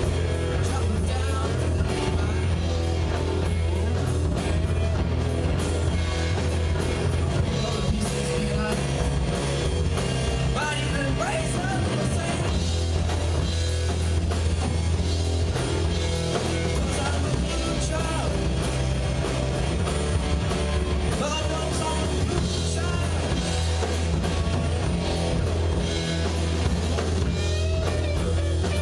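Live rock band playing: electric guitars over a drum kit, loud and steady, with bending guitar notes.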